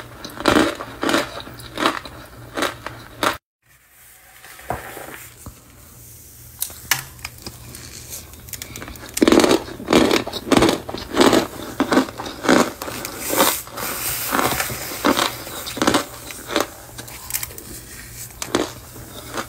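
Fingers squeezing and pressing packed cornstarch, giving a series of sharp crunches at about one or two a second. There is a brief complete break about three and a half seconds in, softer crunching for a few seconds after, then steady crunching again.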